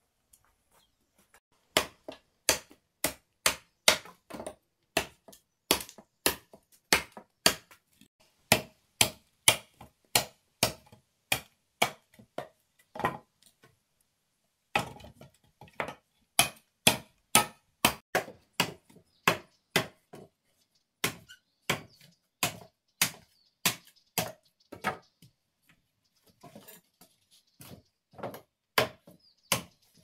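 Repeated chopping: a blade striking wood with sharp, even blows about twice a second. The blows break off for about a second midway, then carry on, weaker near the end.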